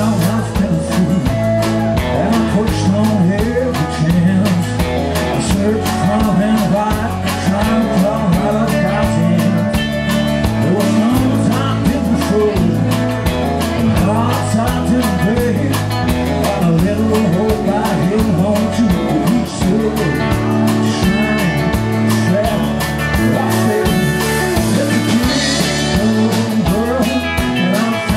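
Live band playing an upbeat rock-leaning song: electric and acoustic guitars over a drum kit keeping a steady beat, with singing.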